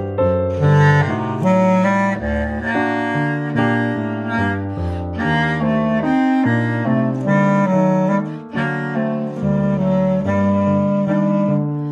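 Bass clarinet playing a melody in its low register, the notes changing a few times a second without a break.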